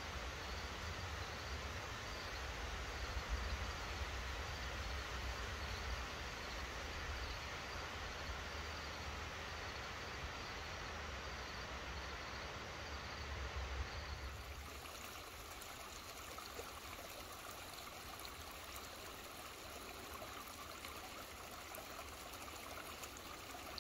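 Creek water flowing steadily over a rocky bed, with wind rumbling on the microphone at first. A little past halfway the wind rumble stops abruptly and only a brighter, hissing run of water remains.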